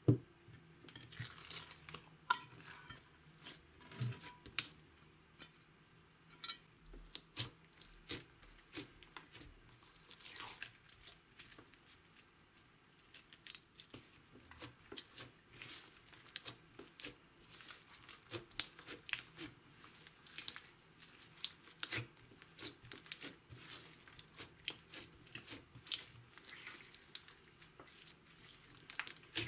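Green glitter slime with foam beads being kneaded, pressed and stretched by hand on a wooden tabletop: a steady run of sticky clicks and crackles. A sharp knock comes right at the start as the slime is tipped out of its glass dish.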